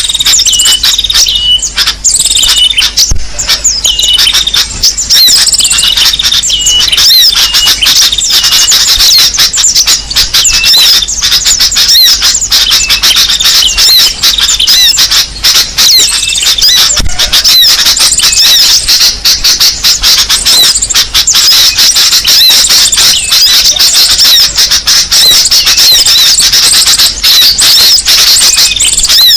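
Bird-lure (pikat) recording of small songbirds: a loud, dense, unbroken mass of overlapping high chirps and squeaky calls, with a short note repeated about every half second through the first third.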